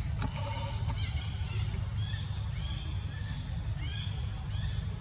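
Birds chirping in short, repeated, up-and-down chirps over a steady low rumble.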